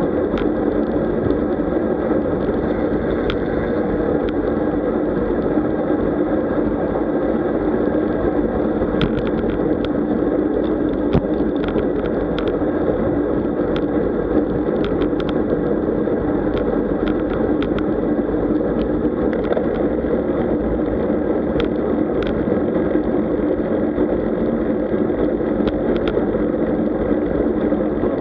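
Steady, muffled rush of wind and tyre noise from a road bicycle riding along, with scattered small clicks and rattles throughout.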